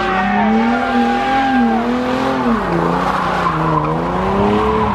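A car doing a burnout: the engine held at high revs, its pitch wavering up and down, over the hiss and squeal of spinning tyres.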